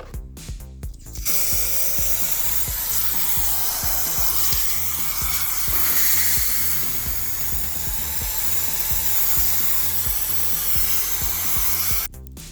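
A small handheld power tool working on a part of a diecast model car, a loud steady hiss that starts about a second in and cuts off suddenly near the end, over background music.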